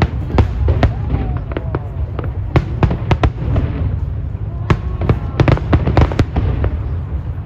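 Aerial fireworks display: a fast, irregular run of sharp bangs and crackles over a continuous low rumble, with two dense clusters of bursts, about three seconds in and again around six seconds in.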